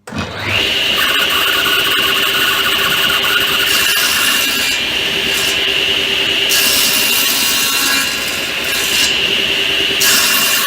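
Table saw starting up, its blade reaching speed within half a second into a steady high whine, then cutting wood on a tilted-blade bevel; the cutting noise rises and falls as the piece feeds through.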